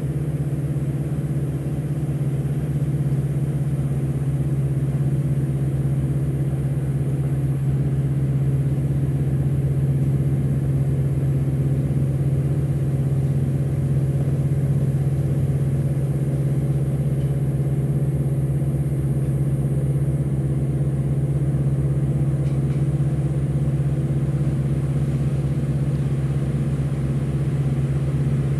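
Boat engine running at a steady speed, an unbroken low drone.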